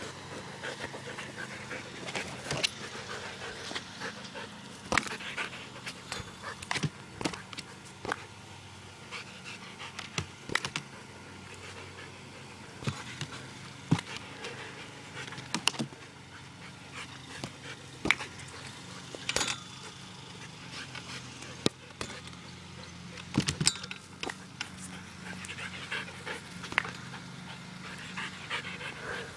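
A dog panting hard while it plays at a tetherball, with scattered sharp knocks and snaps, over a steady low hum.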